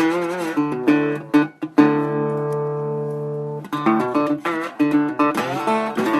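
Slide guitar playing a blues instrumental passage, the notes gliding and wavering in pitch between plucked attacks, with one chord left ringing for about two seconds midway.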